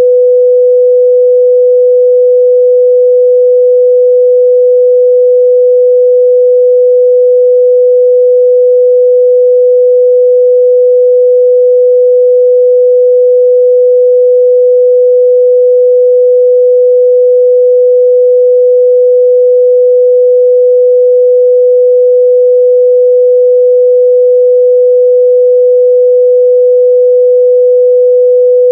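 A pure 497 Hz sine-wave test tone held steady and loud, with no change in pitch or level.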